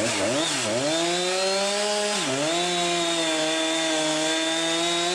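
Two-stroke chainsaw at high revs cutting into a large tree trunk, its engine note dipping briefly a couple of times in the first second and again about two seconds in as it bogs in the cut, then holding steady.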